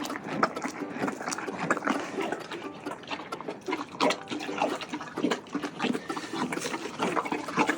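Horse eating a wet mash of soaked beet pulp and senior grain: irregular sloppy, wet chewing and slurping.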